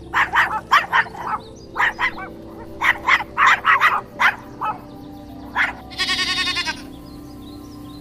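Small dog, a Jack Russell terrier, yapping in a quick, irregular run of short barks for about five seconds. About six seconds in, a goat gives one quavering bleat.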